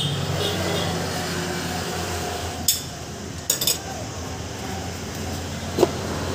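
Glassware and kitchenware clinking as they are handled on a steel counter: a sharp clink, a quick pair of clinks just after, and a last ringing clink near the end, over a steady low hum.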